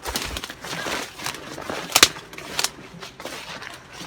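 Leaves and branches rustling as someone pushes through overgrown plants on foot, with several sharp twig snaps, the loudest about two seconds in.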